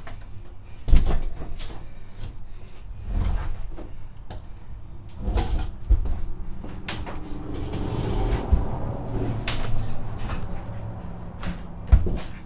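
A large plywood sheet being manoeuvred in a cramped space, knocking and bumping against the cabinets and floor framing, with scraping in between. The loudest thumps come about a second in and just before the end.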